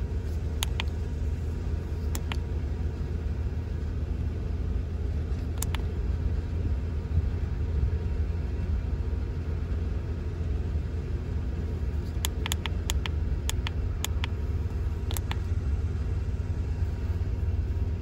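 A Ford Ranger pickup engine idling steadily, heard from inside the cab, with its ignition coil pack freshly replaced to cure a cylinder 3 misfire. Scattered sharp clicks from the buttons of a handheld OBD-II code scanner, with a quick run of them past the middle.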